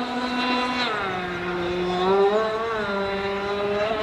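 Remote-control boat's motor running with a steady whine. Its pitch drops about a second in and climbs back up between two and three seconds in.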